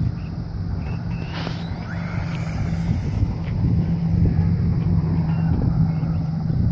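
Low steady rumble, with a faint high whine that rises about a second and a half in and glides again near two seconds: a LaTrax Prerunner RC truck's Himax brushless motor accelerating as the truck speeds along the road.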